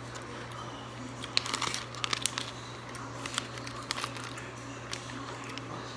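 Plastic Skittles candy bag crinkling as it is handled, in irregular crackles from about a second in until about four and a half seconds, over a faint steady low hum.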